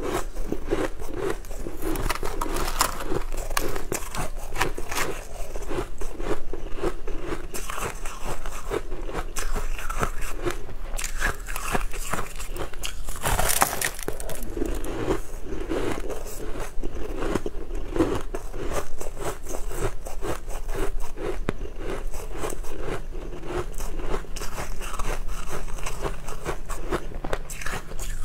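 A person biting and chewing pieces of crunchy purple crystalline food close to a clip-on microphone, with many sharp crackles and crunches and one loud crunch about halfway through. A faint low hum runs underneath.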